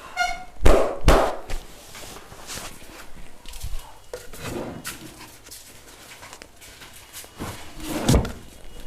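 Hands slapping and patting on the body during a massage: two loud slaps under a second apart near the start, lighter taps after, and another loud slap near the end.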